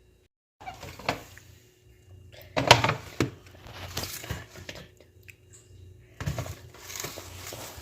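Handling noises: a run of knocks and clicks with rustling between them, the loudest knock about three seconds in.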